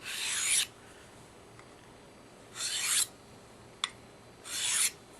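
Steel broadhead edge, held in a clamp guide, scraped across the medium-grit side of a sharpening stone in three short strokes about two seconds apart, with a light click between two of them. The strokes alternate from one side of the blade to the other to remove the burr.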